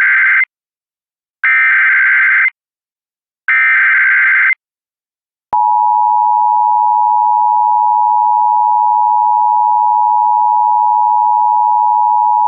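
Emergency Alert System tones: the end of one burst of the SAME digital header, then two more one-second warbling data bursts a second apart. After a short gap the steady two-tone EAS attention signal starts about five and a half seconds in.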